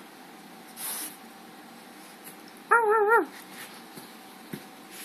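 A dog gives one short, wavering whine, its pitch wobbling up and down and dropping off at the end, about three seconds in. A short breathy noise comes about a second in.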